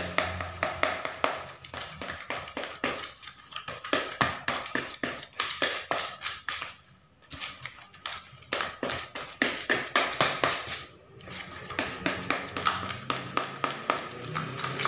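Cooked fish meat being crushed by hand with a spoon in a plastic bowl: rapid, irregular taps and clicks, with brief pauses about seven and eleven seconds in.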